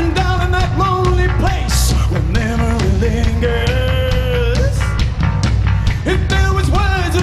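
Live rock band playing, with a man singing long held notes over drums and guitars.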